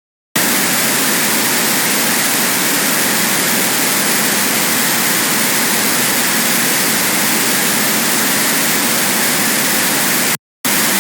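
Harsh noise wall: a loud, dense, unchanging wall of electronic static and hiss, heavy in the upper range with little deep bass. It starts abruptly, cuts out for a split second near the end, returns briefly and stops.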